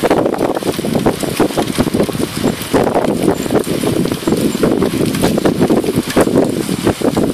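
Wind buffeting the microphone of a camera on a moving bicycle, mixed with rumble and rattle from riding over the road. It is loud and uneven, without a steady tone.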